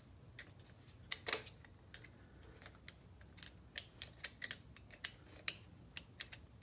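Screwdriver turning the worm screw of a hose clamp, giving a string of small, irregular metal clicks and ticks.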